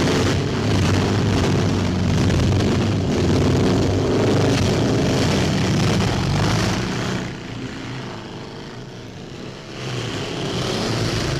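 Motorcycle engines revving hard as the bikes ride off-road, their pitch rising and falling. Loud for about seven seconds, dropping away for a couple of seconds, then coming back near the end.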